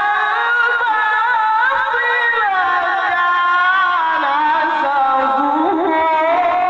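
A qari's solo, unaccompanied melodic Quran recitation: one high voice holding long ornamented notes that waver and slide up and down in pitch.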